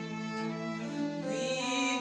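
Violin playing held notes over a sustained accompaniment in a gospel worship song, moving to new notes a little past the middle.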